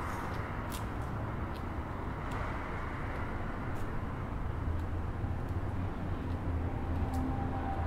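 Steady low rumble of night-time outdoor ambience with distant traffic, with faint footsteps on a paved path ticking through it about once a second. A faint steady tone comes in near the end.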